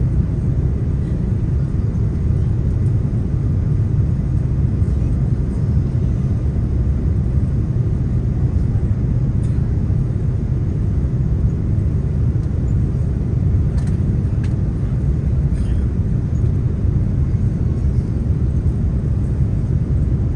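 Steady low rumble of cabin noise inside an Airbus A330-300 airliner descending on approach to land: engine and airflow noise heard from a window seat, with a few faint clicks near the middle.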